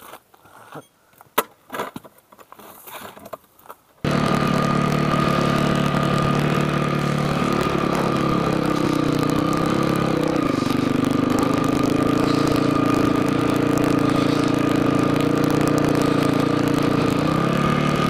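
Quiet with a few faint knocks for about four seconds, then an abrupt cut to a dirt bike's engine running at a steady pace on a rocky trail, its pitch dipping briefly about ten seconds in and again near the end.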